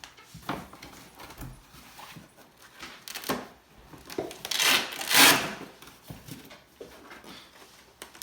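Cardboard and packing material being handled and pulled open on a large statue box: a string of uneven rustling and scraping sounds, the loudest about five seconds in.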